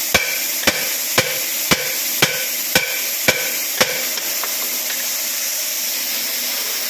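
Hammer striking metal at the propeller shaft's universal (star) joint: eight sharp blows, about two a second, each with a short ring, stopping about four seconds in.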